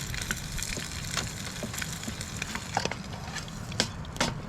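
Dry twigs snapping and crackling: irregular sharp cracks of varying loudness, with a couple of louder snaps near the end, over a low steady rumble.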